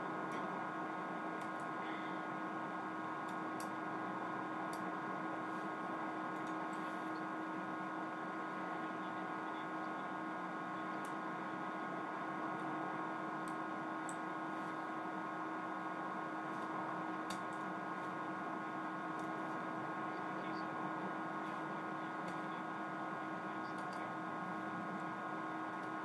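Steady electrical hum with fixed tones at an even level, over which a few faint ticks sound at scattered moments as a plastic opening tool pries ribbon-cable connectors off the iPhone 4 logic board.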